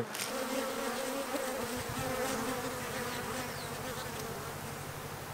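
Japanese honeybees buzzing as they fly in and out of their hive entrance, a steady hum.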